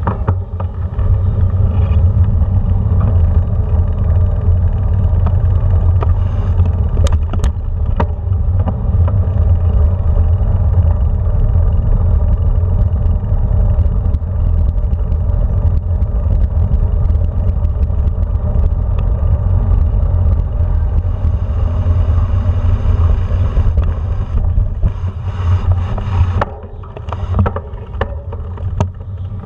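Steady low rumble of wind buffeting an action camera's microphone and bicycle tyres rolling over brick and cobbled paving, with a few sharp rattles about seven and eight seconds in. It gets quieter and more uneven near the end.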